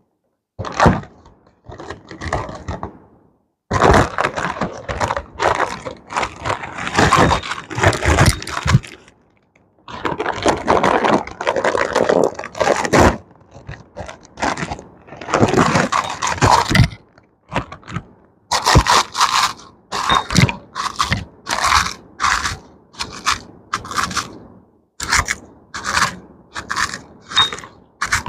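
Lay's potato chips being crunched: loud crackling crunches in long dense stretches, breaking into short separate crunches about one or two a second in the second half.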